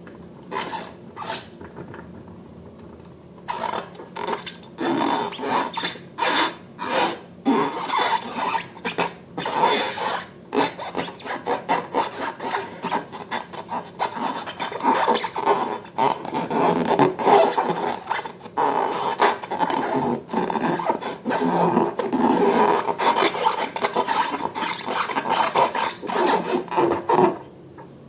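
Slime being worked and mixed by hand, giving irregular rubbing and scraping strokes. They are sparse at first, then dense from about three and a half seconds in, and stop shortly before the end.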